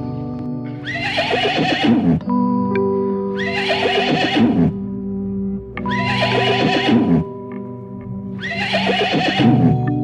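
Horse whinnying four times at even intervals, each call falling in pitch, over steady background music.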